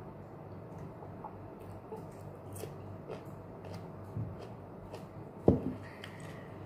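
A low steady room hum with a few faint clicks, then about five and a half seconds in a single sharp knock, a plastic drinking cup set down on a table.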